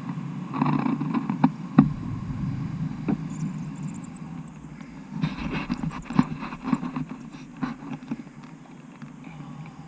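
Steady low rumble of wind buffeting the microphone, with irregular knocks and rattles: a sharp knock about 2 seconds in and a cluster of clatters from about 5 to 8 seconds in.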